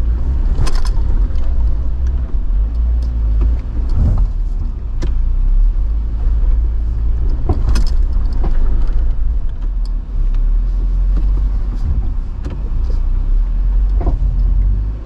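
Jeep Wrangler JL crawling slowly over rock: a steady low engine rumble, broken by a handful of sharp knocks and scrapes as the tyres and underside meet the rocks.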